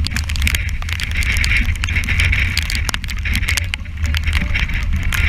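Strong wind buffeting the microphone over the rush of waves and spray along a heeled sailing yacht, with spray hitting the camera in a patter of small ticks.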